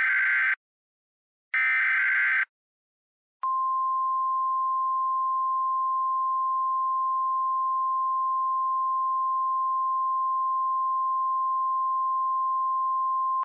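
EAS SAME header data bursts: the end of one about a second in, then a second full burst, each a harsh buzzy warble. After a click, the single steady 1050 Hz National Weather Service attention tone sounds for about ten seconds and cuts off sharply, signalling that a warning message follows.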